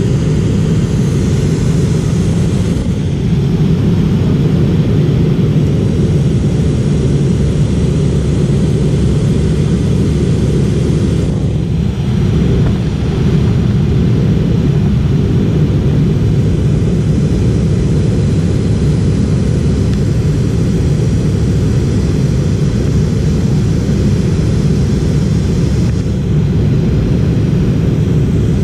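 Steady cabin noise of a McDonnell Douglas MD-88 airliner in flight, heard from a window seat over the wing: a dense, loud, low rumble of its rear-mounted JT8D turbofan engines and airflow.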